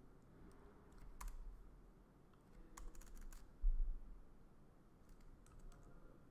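Computer keyboard keys clicking a few scattered times as code is edited, with one low thump a little past the middle.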